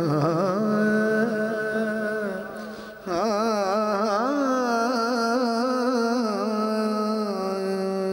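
A man singing a naat in a long, melismatic vocal line full of wavering ornaments, over a steady held drone note. The line breaks off briefly about three seconds in and then resumes.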